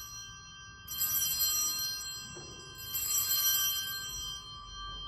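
Altar bells rung at the elevation of the chalice after the consecration: a ring dying away, then two fresh rings, one about a second in and one about three seconds in, each fading out.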